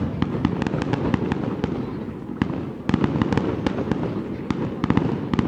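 Fireworks display: rapid strings of sharp bangs and crackles over a continuous low rumble of booms, thickest about three seconds in and again near the end.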